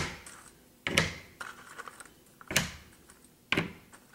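Cardboard jigsaw puzzle pieces being sorted by hand from their box and set down on the table: four sharp knocks about a second apart, with softer clicks between.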